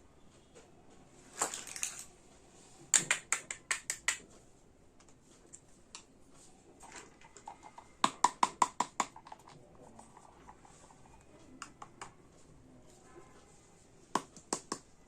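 Small plastic pieces of a miniature toy kitchen set being handled and set down: a short rustle, then runs of quick, light clicks and taps, about six around three seconds in, a faster run of about nine around eight seconds in, and a few more near the end.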